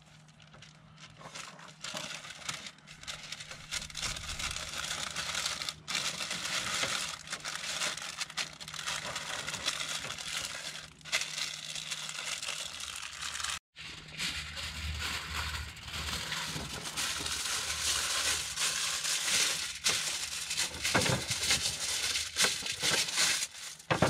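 Aluminium foil and baking paper crinkling and crumpling as fish are wrapped into parcels for cooking, with a brief break about halfway.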